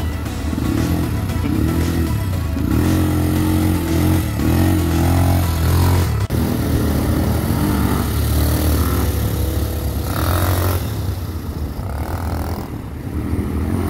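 A small motor vehicle's engine running, heard under background music.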